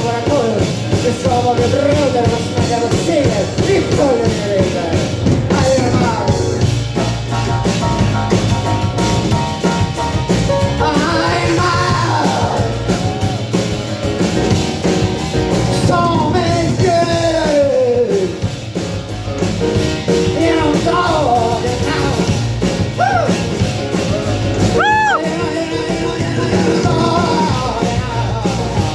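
Live song with a singer's voice over grand piano and plucked upright double bass.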